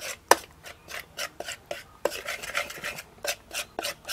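A metal spoon scraping and clinking against a metal bowl as it stirs egg, yogurt and masala powder into a thick paste, in quick uneven strokes of about four a second.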